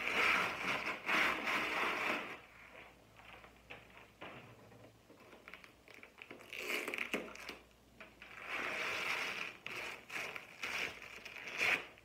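Clear plastic protective film crinkling and rustling as it is handled and pulled off a new cutting machine. The sound comes in several bursts, loudest over the first couple of seconds.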